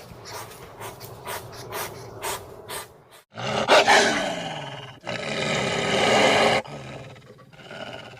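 A run of light, quick clicks, then about three seconds in a loud animal call that falls in pitch, followed by a second long, loud call and quieter calls near the end.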